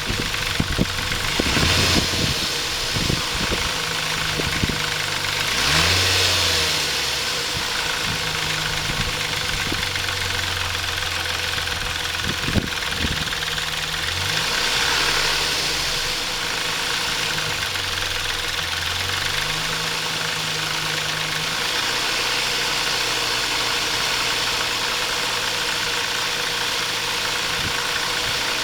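Chrysler Intrepid's 2.7-litre V6 idling and revved up briefly about three times, carrying the abnormal engine noise that turned out to be a timing chain tensioner not released correctly when the water pump was replaced.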